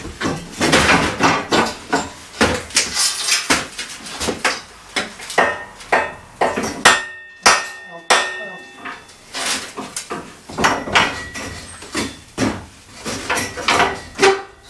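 Irregular hammer blows and clanks on steel as a propped steel beam is knocked sideways into position, with a ringing metallic note about seven seconds in.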